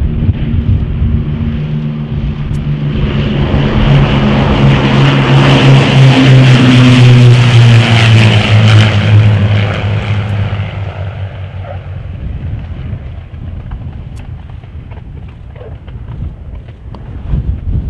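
Avro Lancaster's four Rolls-Royce Merlin V12 engines droning as the bomber flies low past. The sound builds to a loud peak, drops in pitch as the aircraft goes by, then fades away.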